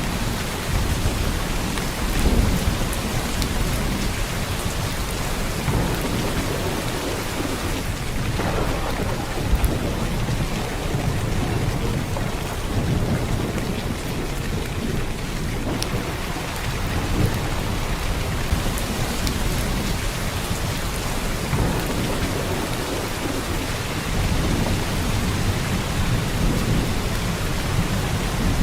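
Heavy downpour of rain: a dense, steady hiss of drops on surfaces, with deeper low rumbles swelling and fading every few seconds.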